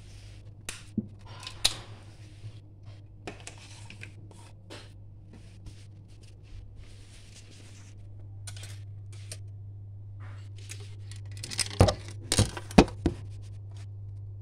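Handling noises in a kitchen: scattered light clicks, knocks and short rustles, with a cluster of sharper clinks and knocks about twelve seconds in, over a steady low hum.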